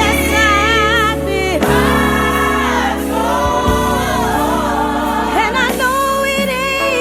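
Gospel song with a choir and a lead voice singing held, wavering notes over bass and keyboard accompaniment.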